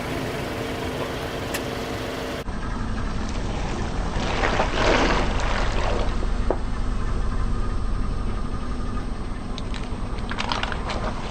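Car engine running steadily, with a swell of crackling about five seconds in and scattered sharp cracks near the end as the tyres crush objects.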